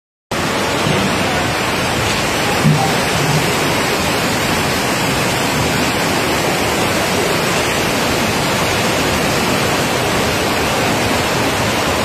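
Loud, steady rush of floodwater, starting abruptly after a split second of silence.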